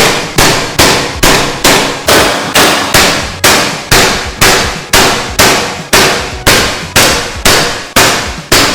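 A long, very even run of sharp, loud bangs with a metallic edge, about two and a half a second, each dying away quickly.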